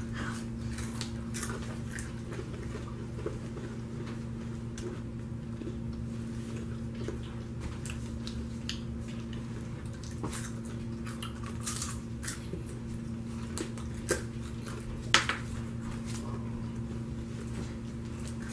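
Several people crunching and chewing caramel-coated popcorn: scattered crisp crunches and small clicks, one louder about fifteen seconds in, over a steady low hum.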